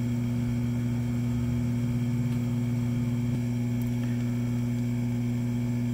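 Steady low electrical hum, one low tone with its overtone, unchanging throughout.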